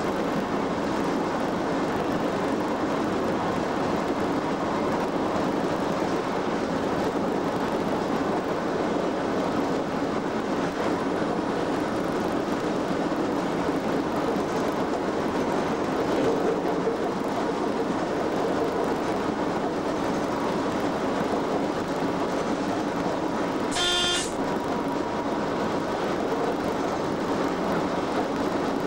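Steady running noise in the cab of a British Rail Class 87 electric locomotive travelling at speed, heard from the driving cab. About two-thirds of the way through, one short, sharp pitched tone sounds once.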